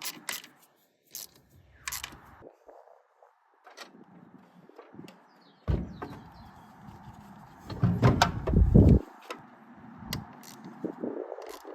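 Metal clicks and clunks of a spanner working and parts being handled while the starter switch's mounting bolts are tightened, with a sudden knock about six seconds in and a louder low rumbling clatter around eight seconds.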